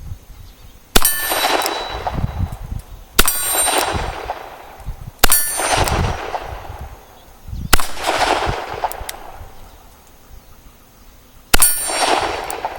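Five single-action shots from a Colt Diamondback .38 Special revolver, about two seconds apart with a longer pause before the last. Each shot is followed by a ringing decay of a second or more, as from a struck steel plate.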